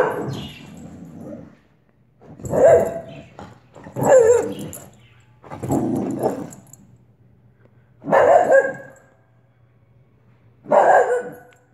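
Wheaten terrier barking in play, six loud barks spaced a second or two apart.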